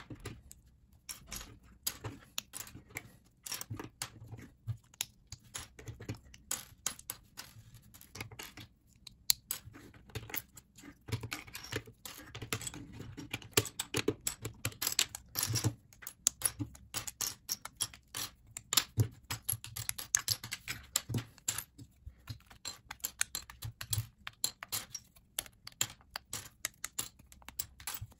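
LEGO bricks being pulled apart by hand and tossed onto a pile of loose parts on a tabletop: a continuous run of irregular light plastic clicks and clacks.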